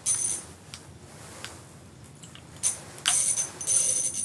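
Piscifun ICX 5 ice reel's drag buzzing in short high-pitched bursts as a big channel catfish pulls line: once right at the start, then again for about a second near the end.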